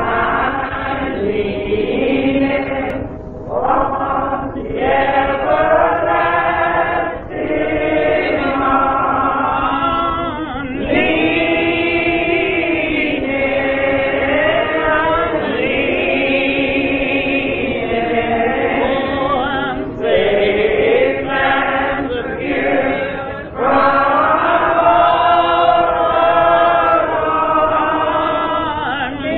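Church choir singing a gospel song, with long held notes between shorter phrases.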